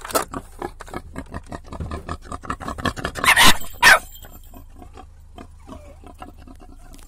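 Wild boar grunting and snuffling in quick short pulses at the car window, with two louder, harsher bursts about three and a half seconds in, then only faint grunts.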